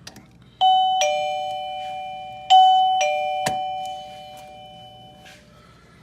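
Wireless caregiver pager receiver playing a two-note ding-dong doorbell chime, a higher note then a lower one. The chime sounds twice, about two seconds apart, and rings out slowly. A sharp click comes about three and a half seconds in.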